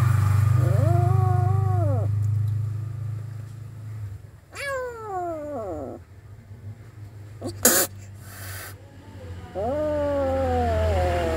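Frightened feral kitten meowing three times, drawn-out cries that rise and then fall in pitch, with a short hiss about two-thirds of the way through. A steady low hum runs underneath at the start and near the end.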